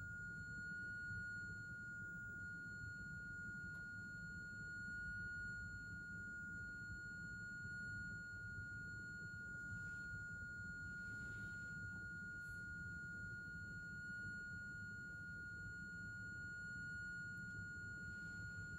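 Loudspeaker sounding a steady high-pitched pure tone into a closed resonance tube, over low room rumble. The tone is being tuned up through about 1410 to 1440 hertz toward the tube's n = 11 resonance at 1437 hertz.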